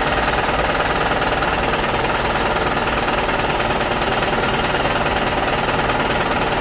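Steady, fast mechanical rattle like a running motor or vibrating machine, holding level throughout.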